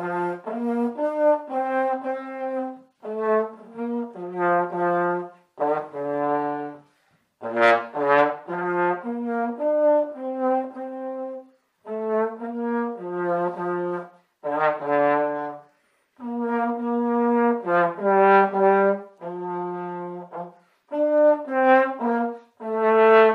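Solo trombone playing a slow melody in short phrases of a few held notes each, with brief breaks for breath between the phrases.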